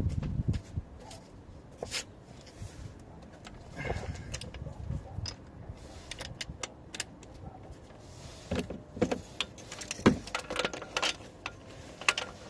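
Scattered metallic clinks and knocks of hand tools and parts being handled during work on the car, with a quicker cluster of clicks near the end.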